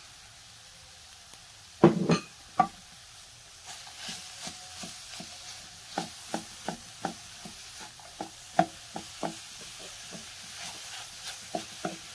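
Vegetable filling of onion, carrot and freshly added grated zucchini sizzling in oil in a frying pan while being stirred, with the spoon knocking against the pan about two to three times a second. A couple of loud knocks come about two seconds in.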